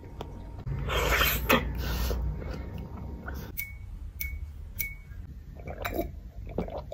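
Close-miked eating sounds: soft jelly candy being chewed, the loudest part early on. A few light clicks follow, then sips and a swallow of a drink from a glass near the end.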